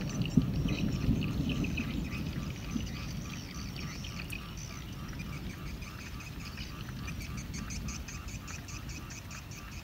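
A chorus of animal calls repeated rapidly, several a second, over a low rumble that is loudest in the first few seconds and then dies down.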